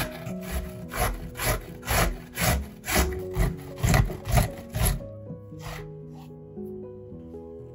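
A vegetable being grated on a hand grater, with rasping strokes about two a second that stop about five seconds in. Soft background music plays throughout.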